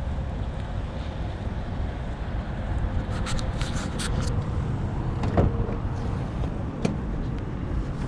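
Steady low outdoor rumble, with a few faint clicks around the middle and a single knock about five seconds in.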